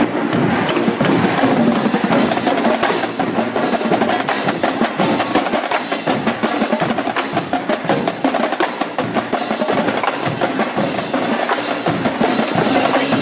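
Marching drumline playing a fast percussion cadence: dense, rapid stick strokes on snare drums with sharp clicks, carrying on without a break.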